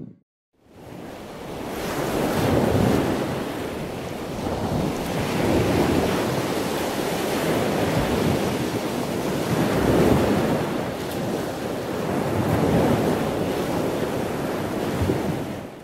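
Ocean surf with wind on the microphone: a rushing noise that swells and eases every few seconds. It fades in just after the start and fades out near the end.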